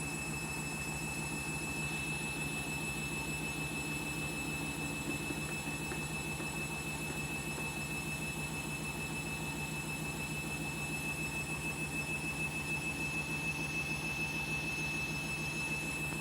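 Washing machine spinning a half load at speed: a steady motor hum with a constant high whine, and a slight regular throb that swells a little in the second half. The spin is a little out of balance, though not badly.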